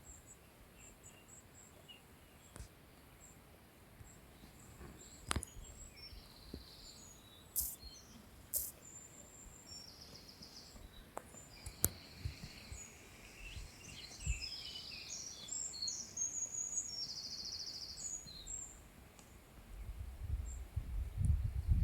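Small birds chirping and trilling faintly in the background, with a few scattered sharp clicks; a low rumbling noise rises near the end.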